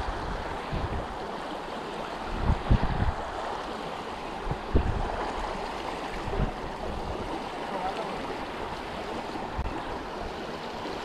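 Steady rush of moving water, with a few low thumps on the microphone about two and a half, five and six and a half seconds in.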